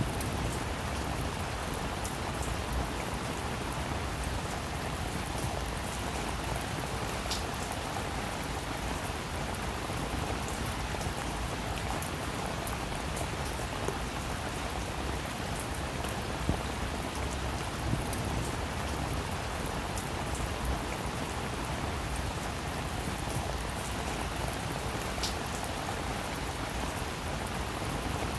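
Steady rain falling and pattering on surfaces, with scattered individual drop clicks.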